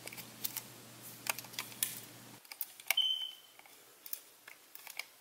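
Faint, scattered small clicks and ticks of fingers handling 35mm film and the open back of a Minolta SRT 201, as the film leader is fed into the take-up spool. A short high beep comes about three seconds in.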